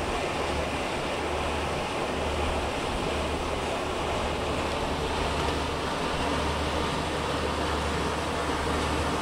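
Motor yacht under way: a steady low engine drone under the rush of water from its bow wake, with wind noise on the microphone.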